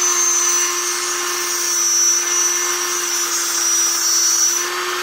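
Techsouth Power Point handheld tungsten grinder running at steady speed with a high whine, its diamond wheel grinding the end of a tungsten electrode square. The whine dips briefly near the end.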